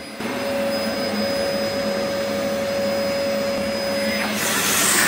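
Dyson DC04 Absolute Plus dual-cyclone upright vacuum cleaner running on carpet: a steady rush of air with a constant whine. A little over four seconds in, the whine drops out and the rush of air turns broader and hissier.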